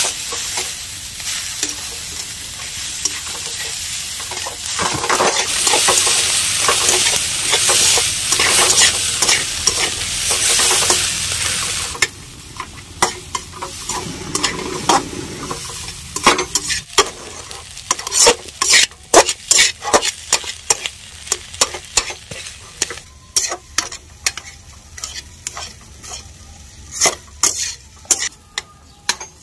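Vegetables sizzling in hot oil in a kadhai while a spoon stirs and scrapes them. About twelve seconds in the sizzle suddenly drops away, and from then on it is mostly the spoon knocking and scraping against the pan in quick, irregular strokes as the mix is worked together.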